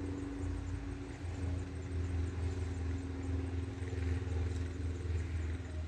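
Motor vehicle engine droning as it passes close by. It swells through the middle and drops away near the end.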